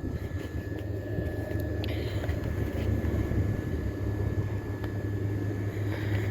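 A 2003 outdoor HVAC condensing unit running loudly: a steady low hum from the compressor and fan, with a faint steady high-pitched whine over it.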